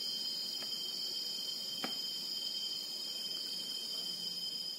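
Steady, high-pitched trilling of insects, like crickets, with two faint taps about half a second and two seconds in as cassava dough is pressed into patties by hand.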